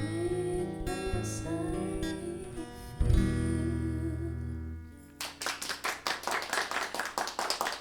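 Acoustic guitar and a sung line closing out a song. The last strummed chord rings for about two seconds, and then a few people start clapping about five seconds in.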